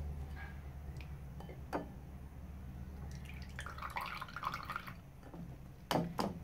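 Blended onion juice dripping through a metal mesh sieve into a bowl, with a few faint clicks over a steady low hum.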